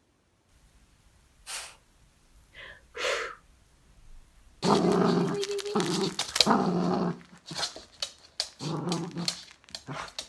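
Cavalier King Charles Spaniel growling. After a few short faint sounds, a steady low growl starts a little under halfway in and lasts about two and a half seconds, with a shorter growl near the end.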